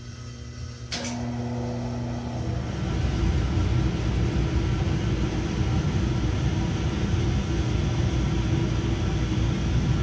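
A click about a second in, then an electric fan or blower starting up and running steadily with a low rumble.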